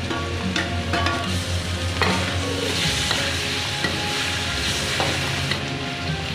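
Chicken pieces sizzling in hot oil in a pan while being stir-fried, with a spatula knocking and scraping against the pan several times. The sizzle grows fuller through the middle of the stretch.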